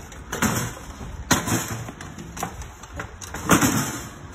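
Loaded stair-climbing hand truck bumping up stone steps, its wheels clunking against each step edge: a series of knocks about a second apart.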